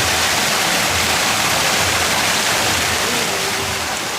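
Steady rush of flowing water, as from a waterfall or fast stream, dropping off slightly near the end.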